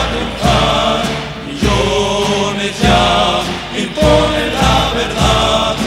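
Background music: a choir of voices singing a Spanish-language protest song over instruments with a steady, regular bass beat.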